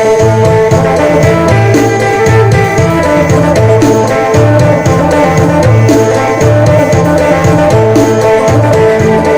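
Upbeat Isan phin music: the plucked phin lute playing a melody over a steady drum beat and repeating bass notes.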